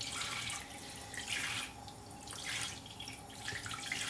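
Kitchen tap running steadily into a sink, with four louder rasping swells about a second apart as a knife is scraped along a whole fish under the stream.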